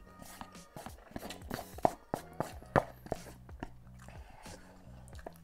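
Close-miked eating of Samyang cheese fire noodles: chewing and slurping with many short wet mouth clicks and smacks, over faint background music.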